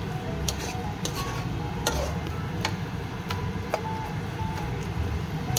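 Metal spoon clicking and scraping against a wok as a thick stew of taro leaves, pork and coconut milk is stirred. The sharp clicks come at irregular intervals, roughly one every half second to a second, over a steady low background noise.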